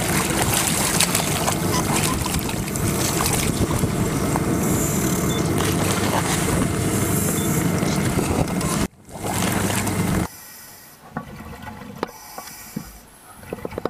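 Steady, loud rushing noise with a low hum at an ice dive hole as a diver surfaces. About ten seconds in it gives way to quieter underwater sound with scattered clicks and bubbling.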